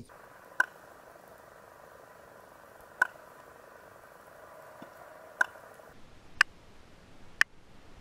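Mangrove whipray clicking underwater: five sharp single clicks, one to two and a half seconds apart, over a steady hiss that drops away about six seconds in. The ray clicks as divers approach, which researchers think is a warning signal.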